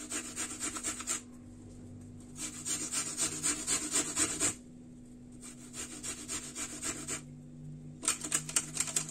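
An apple being grated by hand on a small metal grater: four spells of quick scraping strokes with short pauses between them.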